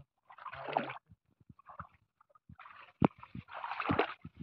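Legs wading through shin-deep water, sloshing and splashing with each step, in two stretches with short knocks between.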